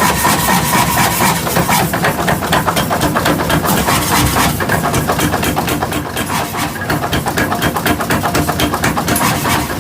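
Metalworking shop machinery running with a rapid, steady run of knocks.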